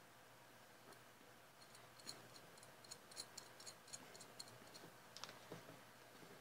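Very faint metallic ticking of small machine screws and nuts being turned by hand on a drive sprocket, a quick even run of about five ticks a second through the middle, then a few scattered clicks.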